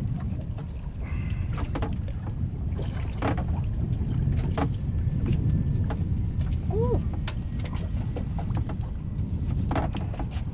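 Steady wind rumble on the microphone aboard a drifting boat on choppy water, with scattered small clicks and knocks as fishing gear is handled.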